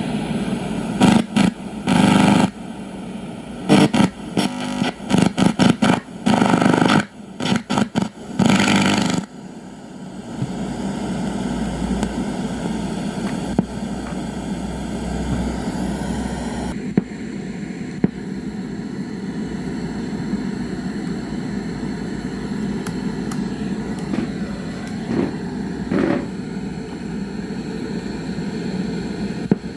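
Portable radio's speaker giving a steady hiss and hum with no station tuned in, after a run of loud crackles and pops in the first nine seconds.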